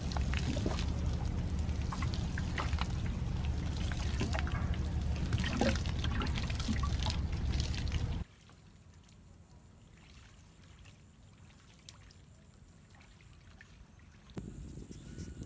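Water pouring and splashing, busy with small irregular splashes, for about eight seconds, then it cuts off suddenly to a much quieter background.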